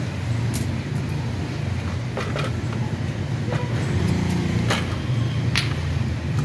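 A vehicle engine running with a steady low rumble. About half a dozen sharp clicks and taps come from hands working on an electric radiator fan and its plastic shroud.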